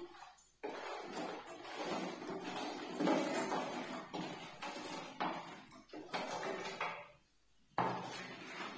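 Wooden spatula scraping fried paneer cubes off a plate into a pan of sauce and stirring them, with irregular scrapes and clatters against the plate and pan. There is a short quiet pause about seven seconds in.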